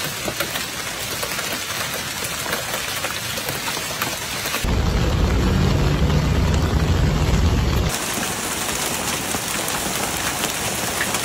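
Heavy rain pouring down with a steady hiss. In the middle a deep rumble comes in for about three seconds and stops abruptly.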